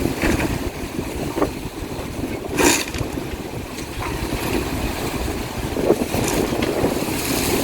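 Storm wind buffeting a phone's microphone over rough water, with a few short bursts of noise standing out, the loudest about two and a half seconds in.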